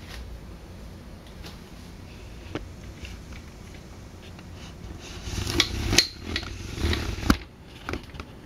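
Handling noise as the camera is moved: a cluster of sharp clicks and knocks with low thuds from about five to seven and a half seconds in, then two smaller clicks, over a low steady room hum.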